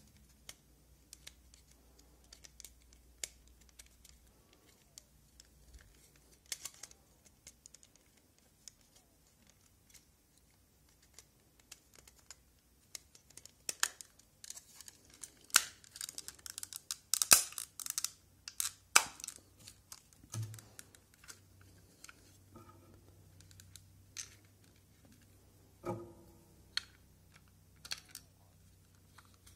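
Plastic clicks and snaps from a Logitech M220 wireless mouse as it is handled and its shell is pressed back together. The clicks come in irregular runs and are densest and loudest around the middle. Near the end a small screwdriver clicks against the screws on its underside.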